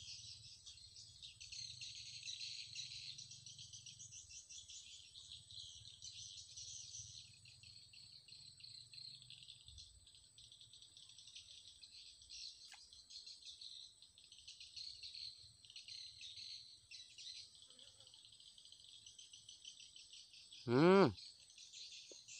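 Steady chorus of insects chirping, high-pitched and continuous. A short vocal exclamation comes near the end.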